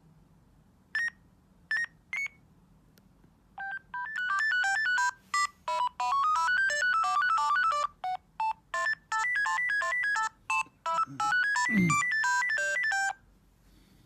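Bird S1150 mobile phone playing a ringtone: three short beeps, then a fast electronic beeping melody that stops about a second before the end. There is a brief low falling swoop near the end of the melody.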